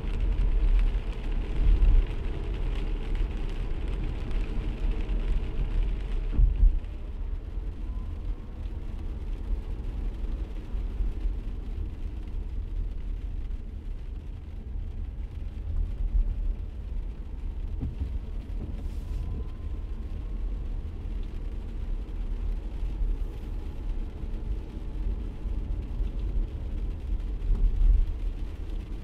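A car driving on a wet road, heard from inside the cabin: a steady low rumble of road and engine noise, with a hiss of tyres on wet pavement that quietens about six seconds in.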